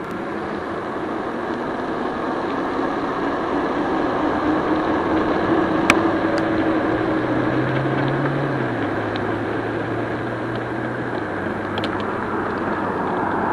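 Wind rushing over the microphone and tyre noise from an e-bike with a 1000-watt, 48-volt kit ridden at full throttle, growing louder over the first few seconds as it picks up speed. Under it is a low hum that drops in pitch about eight seconds in, and there is one sharp click about six seconds in.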